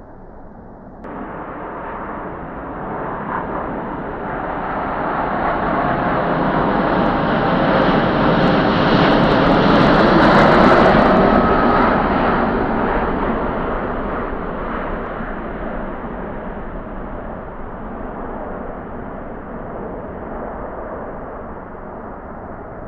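Airbus A330 twin-engine airliner's jet engines at take-off power: a roar that steps up suddenly about a second in, swells as the aircraft rolls past and lifts off, peaks about ten seconds in, then slowly fades as it climbs away.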